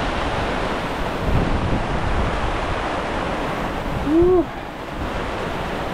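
Squall wind and heavy rain on an anchored sailboat, a steady rushing noise with gusts buffeting the microphone. About four seconds in comes one short pitched sound that rises and then falls.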